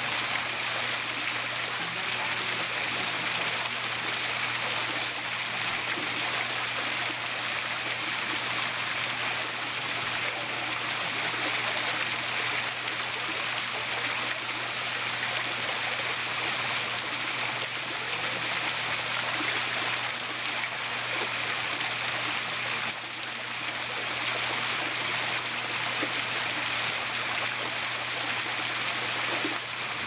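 Small waterfall cascading over rocks: a steady, continuous rush and splash of falling water.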